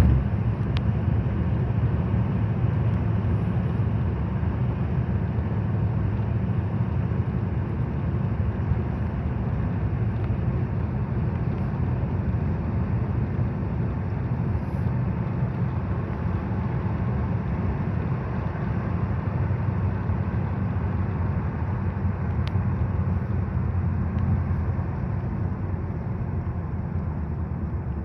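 Train rolling past: a steady rumble of wheels on the rails that slowly fades toward the end.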